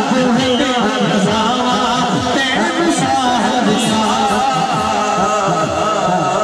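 A man singing a Punjabi naat into a microphone through a sound system, with a wavering, ornamented melody over a steady low backing.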